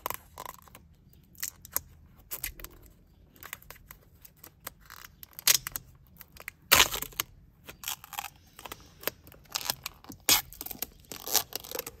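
Clear plastic protective film being peeled off a steering wheel's metal spoke trim: a series of irregular short ripping and crinkling sounds, loudest about seven seconds in.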